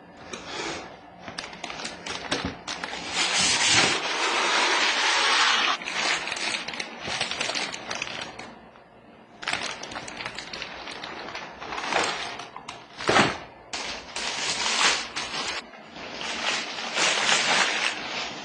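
Clear plastic packaging bag rustling and crinkling as it is handled and pulled off, in long stretches, with short clicks and a couple of knocks from the parts in the box.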